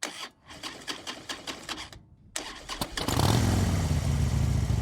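A rapid run of clicks and knocks, then about three seconds in a motorcycle engine comes on and runs steadily with a low, even rumble.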